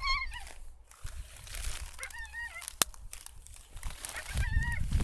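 English pointer whining in three short, high, wavering whines, one at the start, one about two seconds in and one near the end, while it holds rigid on a scent.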